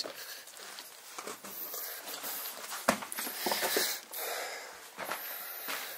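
A person breathing heavily and wheezily close to the microphone, with one sharp knock about three seconds in.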